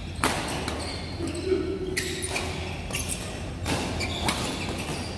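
Badminton rally: rackets striking a shuttlecock, about five sharp hits spread over the few seconds, echoing in a large hall.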